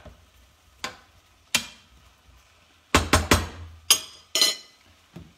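A series of sharp knocks and clinks from kitchen utensils and dishes being handled on a countertop, including a metal spoon picked up. There are about seven knocks, with a quick run of three near the middle.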